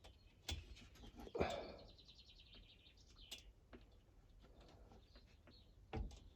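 Faint clicks and knocks of small parts being handled and fitted on a petrol hedge trimmer, with a short rapid chirping trill about a second and a half in.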